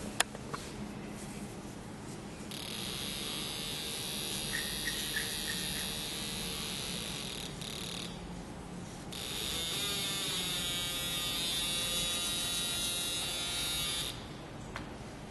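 A small electric motor whirring in two runs of about five seconds each, the second rising in pitch as it spins up. A sharp click comes right at the start.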